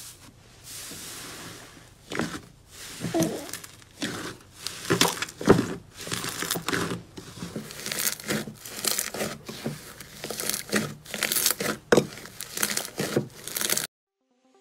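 Hands squishing, pressing and folding a large mound of slime, giving a dense run of irregular sticky crackles and clicks. The sound cuts off suddenly near the end.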